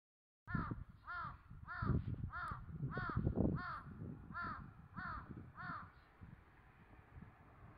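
A crow cawing: nine caws in an even run, a little under two a second, then it stops about six seconds in.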